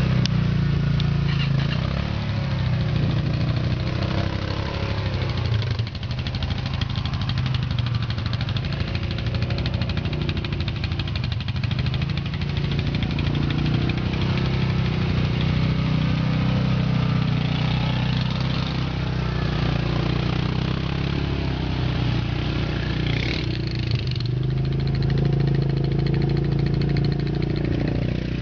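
ATV (quad bike) engines running and revving continuously, the pitch rising and falling with the throttle.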